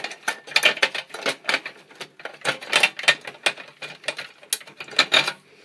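Irregular clicking and rattling of a plastic battery connector and its wires being worked loose and pulled through a cable grip in a UPS's sheet-metal chassis, with short scrapes between the clicks.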